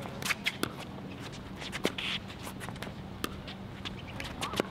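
Pickleball rally: sharp, irregular pocks of paddles striking the hollow plastic ball and the ball bouncing on the hard court, with shoes shuffling and scuffing on the court between shots.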